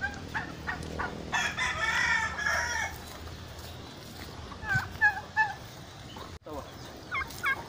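Rooster crowing once, a crow about a second and a half long, followed a few seconds later by several short clucking calls.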